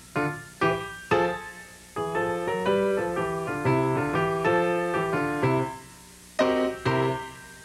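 Piano music: a few separate struck notes, then a quick run of notes in the middle, each note fading away after it is struck.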